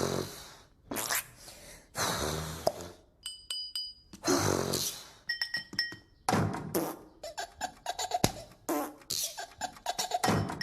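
Cartoon sound effects: a string of short, buzzy, blaring noises, with high electronic beeps in between and rapid clicking in the second half.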